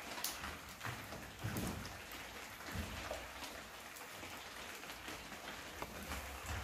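Knitting needles clicking softly and wool rustling as stitches are worked by hand. The clicks come at irregular moments over a steady faint hiss.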